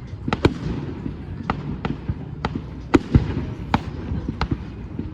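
Fireworks display: aerial shells bursting in an irregular string of about a dozen sharp bangs over a steady low rumble, the loudest about three seconds in.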